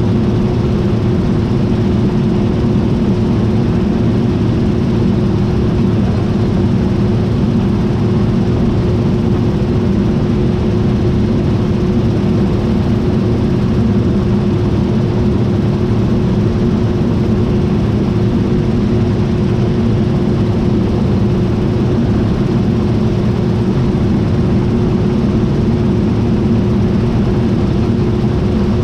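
John Deere T660i combine harvester running steadily: a constant, loud engine and machinery drone with a hum held at one pitch, unchanging throughout.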